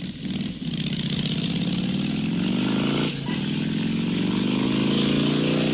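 Vehicle engine accelerating, its pitch rising steadily, dropping at a gear change about three seconds in, then rising again.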